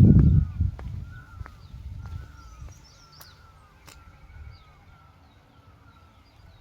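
Birds calling: short, slightly falling chirps repeated about twice a second, with fainter higher chirps and a few sharp ticks. A loud low rumble, like wind on the microphone, dies away over the first second.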